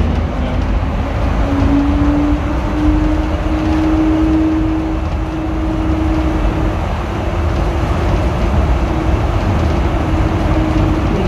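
Heathrow Terminal 5 Transit people mover under way: a whine from its electric drive that rises in pitch through the first few seconds as it picks up speed, then holds steady, over a continuous low rumble.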